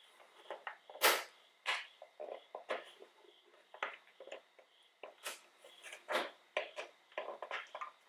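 Plastic side-mirror cover on a Toyota RAV4 being pulled at by gloved hands to free its clips: an irregular run of sharp clicks and knocks, a few a second, the strongest about a second in.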